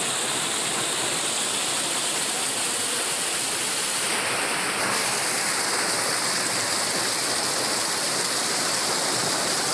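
Waterfall and fast stream water rushing over rocks: a steady, even rush of water, its tone shifting slightly about four seconds in.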